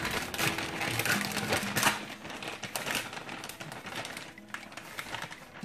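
Clear plastic packaging bag crinkling and rustling as it is handled and pulled open. It is loudest in the first three seconds and fades toward the end.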